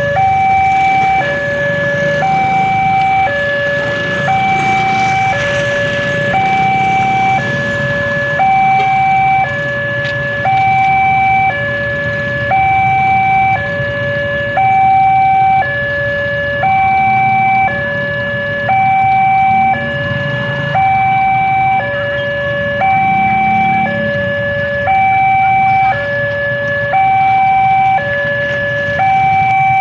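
Railroad level-crossing warning alarm sounding a two-tone electronic signal, a higher tone and a lower tone alternating about once a second, repeating steadily: the crossing is active, warning of an approaching train. A low rumble runs underneath.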